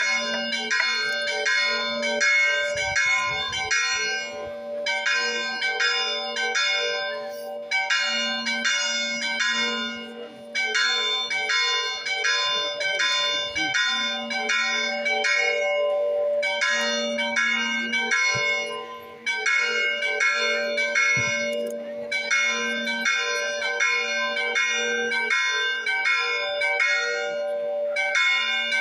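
Several church bells of different pitches rung in quick runs of strokes, a few strokes a second, the runs broken by short pauses every several seconds while the bells keep ringing on.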